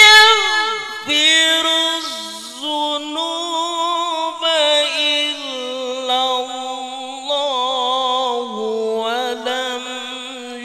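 Melodic Qur'an recitation (tilawah) by a man singing into a handheld microphone, drawing out several long held notes with wavering, ornamented pitch.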